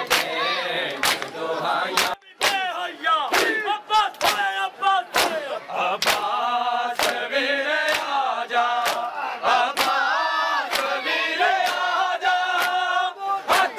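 A crowd of mourners performing matam: open hands slapping bare chests in unison, about two slaps a second, while men's voices chant along with the beat. Briefly quieter about two seconds in.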